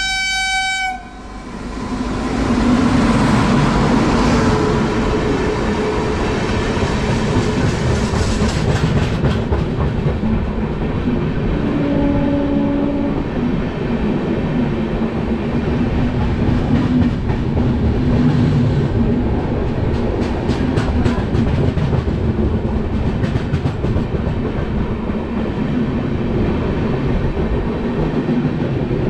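A locomotive horn sounds briefly at the start. Then an oncoming passenger train rushes past close alongside on the next track, a loud steady roar of wind and wheels with rail joints clacking, heard from the open doorway of a moving train.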